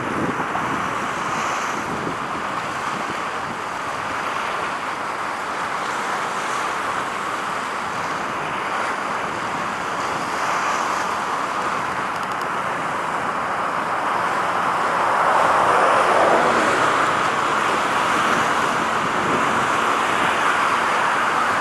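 A steady outdoor rushing noise that swells briefly about fifteen seconds in.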